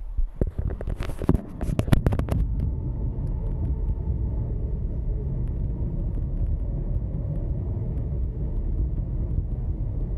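ED4M electric multiple unit running at speed, heard from inside the carriage: a steady low rumble of wheels and running gear on the track. A flurry of clicks and knocks comes in the first two seconds or so.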